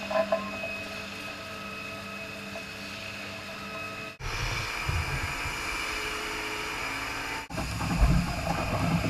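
Steady hum of milking-parlour machinery, with a few fixed tones over a low drone. It breaks off sharply about four seconds in and again near seven and a half seconds, coming back each time a little louder.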